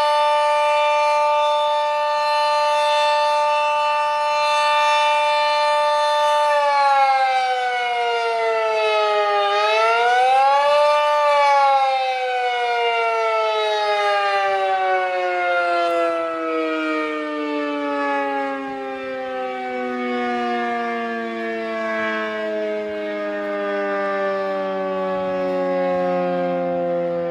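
Dual-tone outdoor tornado warning siren sounding a two-note chord during a test. It holds steady for about six seconds, then drops in pitch, briefly climbs back up, and winds down slowly in pitch.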